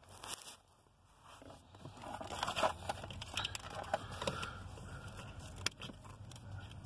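Cutters working at a car's under-dash wiring harness: rustling, crackling and small clicks of the harness covering being cut and pulled at. It picks up about two seconds in.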